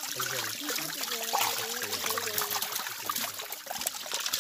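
Many netted fish thrashing and splashing in shallow water, with water trickling and dripping and small scattered splashes.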